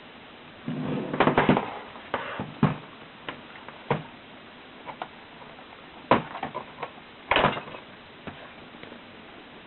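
Irregular sharp plastic clicks and knocks, with a short rustle about a second in, from handling a laptop as its battery pack is put back in.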